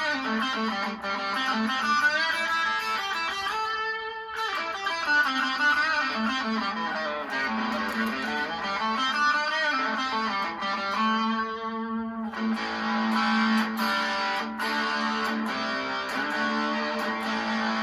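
Electric guitar played through the BC108-transistor overdrive side of a Purple King dual drive pedal, with plenty of gain even with the drive only halfway up. The guitar is played without a break, with chords left ringing a couple of times.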